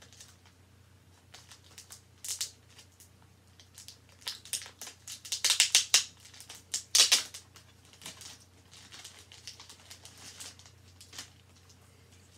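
Packing material being unwrapped by hand, crinkling and rustling in irregular bursts, loudest between about five and seven seconds in.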